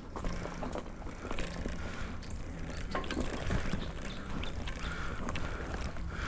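Bicycle riding over a muddy dirt trail: a low rumble of tyres and wind on the helmet camera, with frequent clicks and knocks as the bike rattles over the rough ground.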